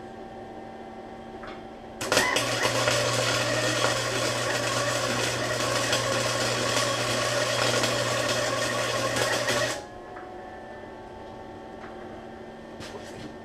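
Wire-feed welder running a bead: an even crackling arc with a steady hum under it, starting suddenly about two seconds in and cutting off about eight seconds later.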